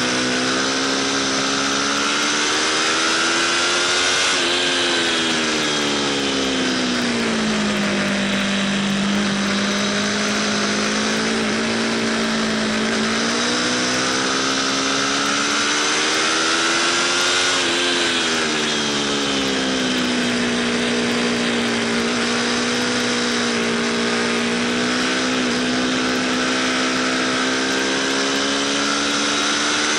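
Aprilia RSV4 Factory ABS V4 engine heard onboard at track speed, its note climbing twice under acceleration, peaking about four seconds in and again past halfway, and falling back as the bike slows for corners, over a steady rush of wind.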